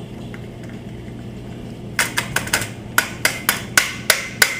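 A quick, irregular series of sharp plastic clicks and clacks, about ten in two and a half seconds starting about two seconds in, from the parts of a vertical blind being handled up at the headrail.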